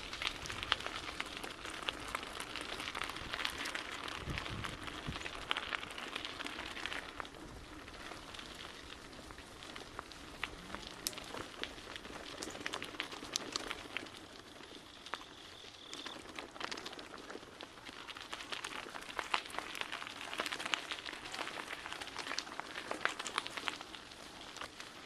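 Bicycle tyres rolling over a rough, bumpy trail, a steady crunching hiss shot through with many small clicks and rattles.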